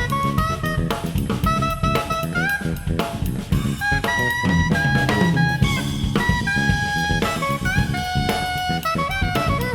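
Jazz trio playing: saxophone melody in short held notes with small bends, over a busy electric bass line and drum kit.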